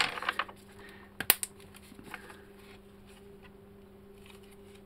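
Handling noise on a workbench: sharp clicks and light rattles as a packaged two-part resin syringe is picked up and tweezers and forceps are moved, the loudest clicks at the start and about a second in, fading to softer fiddling. A steady low hum runs underneath.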